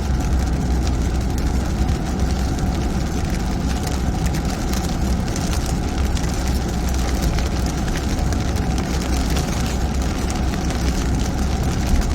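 Car driving through heavy rain, heard from inside the cabin: a steady low rumble of engine and tyres on the wet road, with a dense patter of rain on the car.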